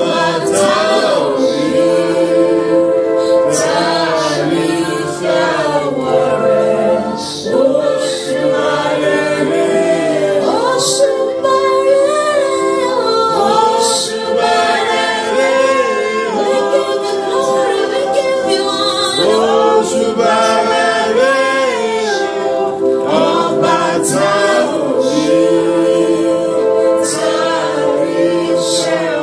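Worship singing: several voices singing a slow song together, with long held notes.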